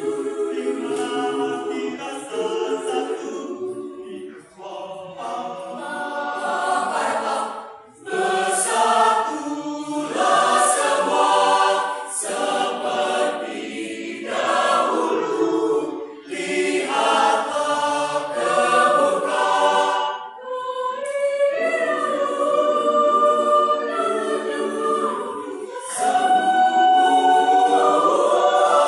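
Mixed choir of men and women singing in harmony, in long held phrases with brief breaks between them, loudest near the end.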